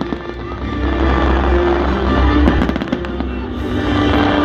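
Fireworks going off: a string of sharp cracks and pops over a low, continuous rumble, with loud music playing along.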